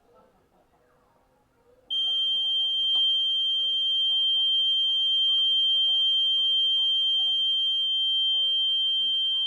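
Heat detector's alarm sounding one steady, loud, high-pitched tone that starts about two seconds in, set off by heating the detector with a flame.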